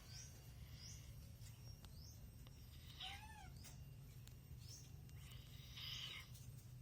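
Faint, high squeaky animal calls: a short run of calls falling in pitch about three seconds in, over soft chirps repeating about once a second.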